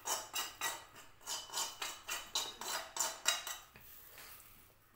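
A steel spoon scraping fried chilli powder out of a metal frying pan. The strokes are short and quick, about three or four a second, and they stop a little after three-quarters of the way through.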